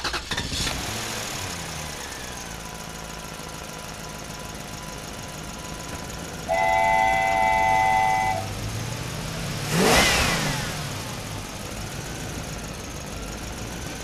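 Truck engine sound with a steady low hum, broken by a horn honk held for about two seconds midway and a brief sweeping whoosh a little later.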